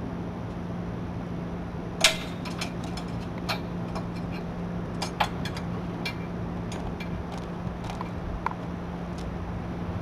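Scattered sharp metallic clicks and clinks from parts of the truck-bed spray system being handled, the loudest about two seconds in, over a steady low hum.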